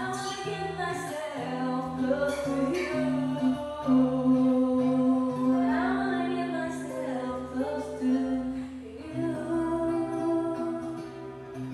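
Karaoke singing over a backing track: a voice holds long notes, with a sliding phrase about six seconds in.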